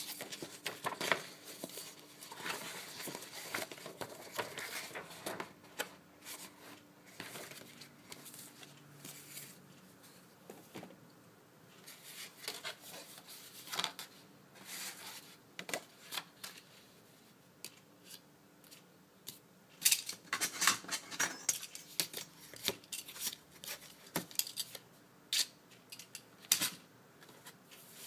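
Heavy 300gsm watercolour paper being slid out of its pad, then flexed and folded on a cutting mat. It gives off rustles, slides and sharp clicks in irregular bursts, busiest near the start and about twenty seconds in.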